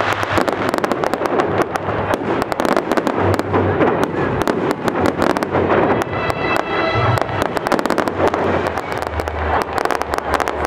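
Fireworks display going off: a fast, unbroken barrage of bangs and crackles from shells bursting overhead.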